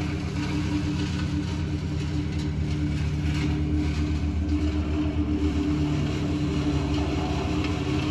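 Engine of a tow-behind wood chipper running steadily, a constant low engine hum.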